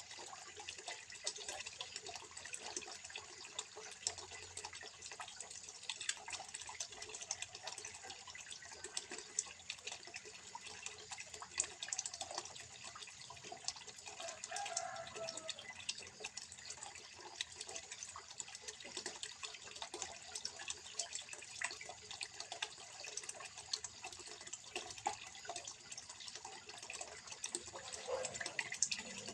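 Water trickling into a small fish pond: a steady trickle with many small splashes and drips.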